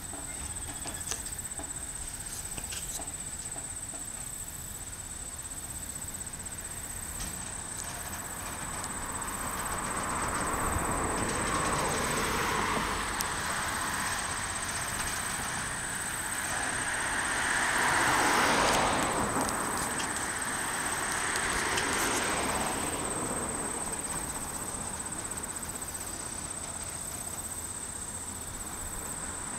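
Freight cars rolling slowly past over a steel bridge: a rumbling clatter of wheels that swells to its loudest a little past the middle and then eases off. A steady high insect buzz runs underneath.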